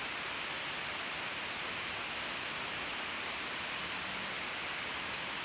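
Steady, even hiss with no distinct strokes or changes: background noise on the recording.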